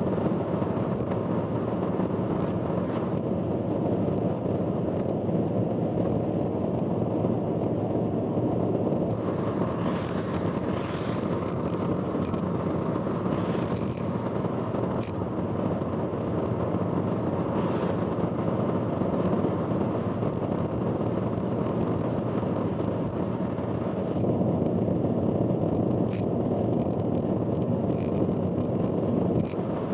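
A car driving on an expressway: a steady, loud rumble of road noise, with faint scattered clicks.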